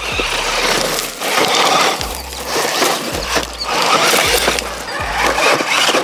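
A 1/10 scale RC truggy with a 590 brushed motor is driven over dirt and rock, its motor and gear drivetrain running with a mechanical rattle. Background music with a steady bass beat about once a second plays underneath.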